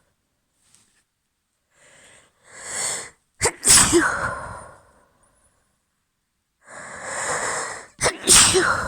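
A woman's wet allergy sneezes: two sneezes, each after a drawn, audible in-breath. The first comes about three and a half seconds in, the second near the end.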